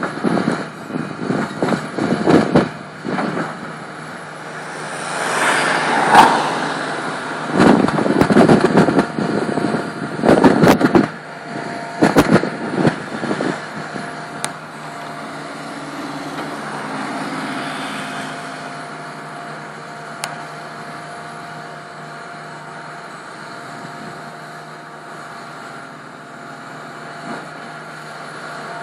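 Hitachi Zaxis 350LC tracked excavator working: its diesel engine and hydraulics run at a steady pitch, while in the first half the bucket scrapes and clanks through rubble in a string of loud knocks. After that, only the steady engine drone is heard as the loaded bucket swings over a dump truck.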